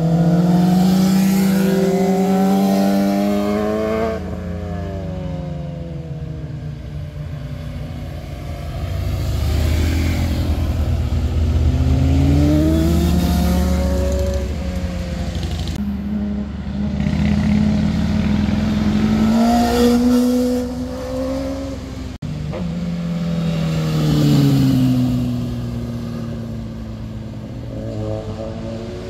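Motorcycles riding one after another through a hairpin bend, their engines rising in pitch as they accelerate and falling as they roll off and pass. The sound breaks off abruptly a few times as one pass gives way to the next.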